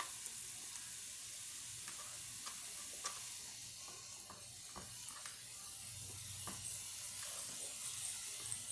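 Hamburger patties sizzling in a frying pan: a steady hiss with scattered small pops and crackles.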